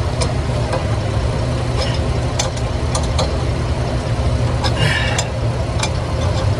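Engine idling steadily, with a few sharp metallic clicks and clinks from tools at work on the hitch.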